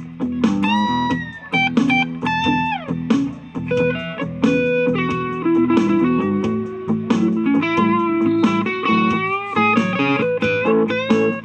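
Electric guitar through an M-Vave BlackBox amp simulator, playing a clean vintage-blues lead: quick picked notes and several string bends about a second in, over steady low notes.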